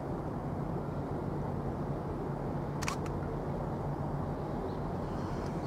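Low, steady drone of a passing container ship's engines carrying across the river, with a single sharp click about halfway through.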